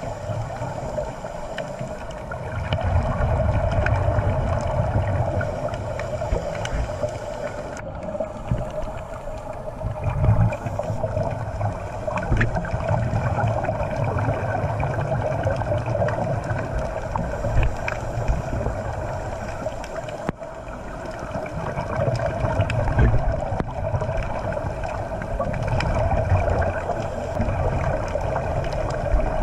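Underwater sound through a dive camera: a steady muffled drone, with surges of scuba exhaust bubbles every few seconds.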